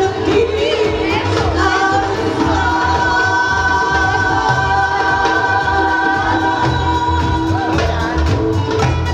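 A woman singing into a microphone over amplified backing music with a steady low beat.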